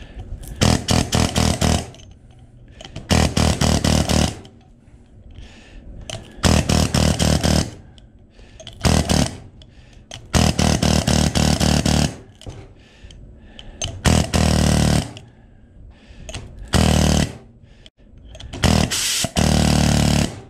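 Air hammer with a chisel bit cutting the copper end windings off an electric motor's steel stator, in about eight short bursts of rapid hammering with pauses between.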